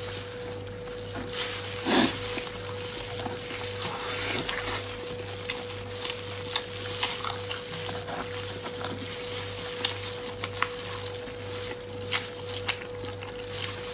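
Close-up eating sounds: wet chewing, lip smacking and sticky tearing of glazed braised pork held in plastic-gloved hands, with many small clicks and one louder wet smack about two seconds in.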